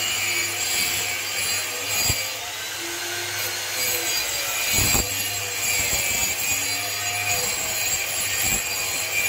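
Electric chainsaw-chain sharpener running with its abrasive stone grinding through the rivets of a saw chain link to remove it: a steady motor hum under the grinding of steel, with two brief knocks.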